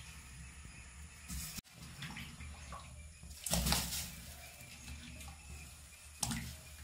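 Peeled cassava pieces dropped by hand into a metal bowl of water, splashing a few times, the loudest about three and a half seconds in.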